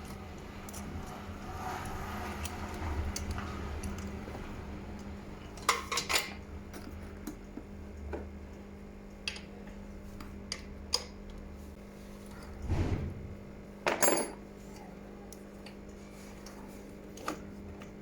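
Scattered metallic clinks and knocks of hand tools and small carburettor parts being handled on a workbench, with a few louder knocks about six seconds in and again near 13 and 14 seconds, over a faint steady hum.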